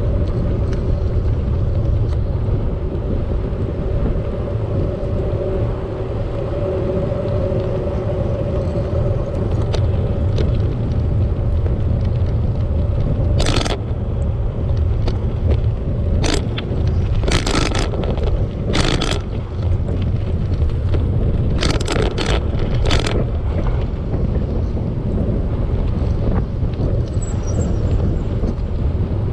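Steady wind rumble on the microphone of a moving bicycle, with a steady hum in roughly the first third and a cluster of short, sharp noises through the middle of the stretch.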